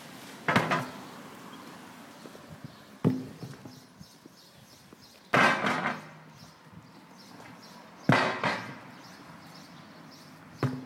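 A heavy rubber tractor tyre being flipped and dropped on concrete: sharp thuds about half a second in, at about three seconds and right at the end, with two longer noisy rushes of sound in between.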